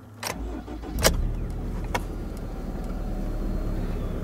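Subaru XV's flat-four boxer engine starting: it cranks, catches with a loud burst about a second in, then settles into a steady idle near 1,000 rpm.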